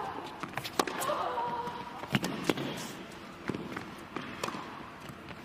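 Tennis rally on an indoor hard court: racket strikes on the ball and ball bounces as a string of sharp pops at uneven intervals, with players' footsteps on the court.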